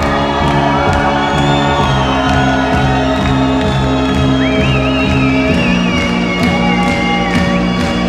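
Loud techno from a live DJ set, with a steady beat and a stepping bass line, and a crowd cheering and whooping over it.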